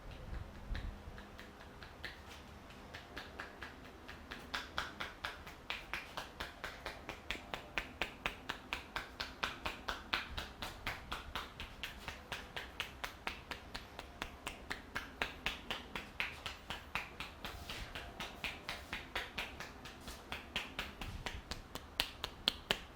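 A barber's hands strike the head and back in a rapid, even rhythm of sharp slaps, about four a second, as in a percussive tapping massage. The strikes start a couple of seconds in.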